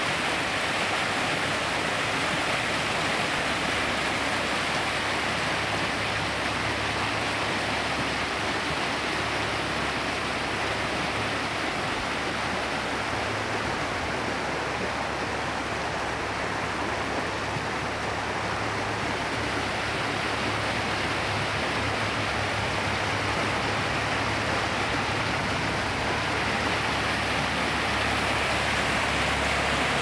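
Brown, rain-swollen stream rushing over rapids: a steady roar of white water, a little softer in the middle.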